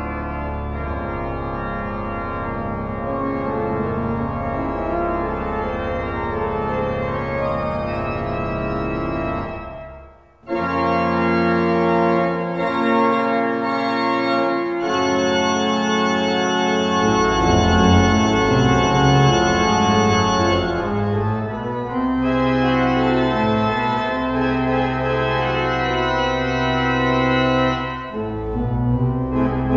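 Pipe organ playing slow, sustained chords. About ten seconds in the sound breaks off briefly, then comes back fuller and louder, with deep bass notes underneath.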